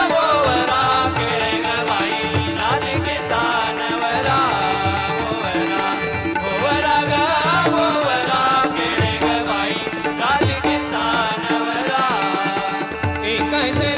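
Marathi bhajan music without words: a gliding melody over a steady drone, with hand-drum strokes and a metallic rattle keeping time.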